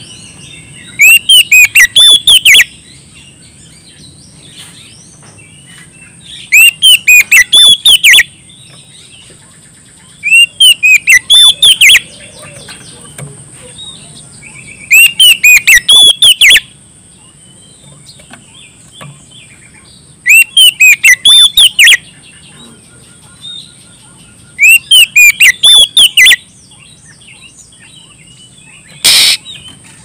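Oriental magpie-robin (kacer) singing loudly in six separate bursts of quick, clear, rising-and-falling whistled notes, each burst about a second and a half long and coming every four to five seconds. It is the full-voiced challenge song that kacer keepers use to call out a rival bird.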